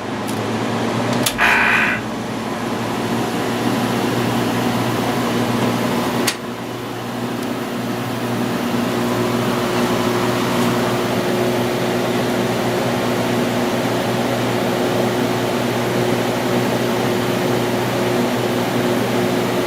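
Fedders 8,000 BTU window air conditioner, with a Sanyo rotary compressor and an LG fan motor, starting up. The fan's rush builds over the first couple of seconds with a short tone and a thump, a sharp click comes about six seconds in, and then the unit settles into a steady running rush over a low hum.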